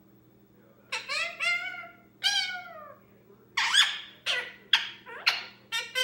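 Young male Indian ringneck parakeet giving a string of short pitched squawks and chatter, starting about a second in. The notes bend downward in pitch and come quicker toward the end.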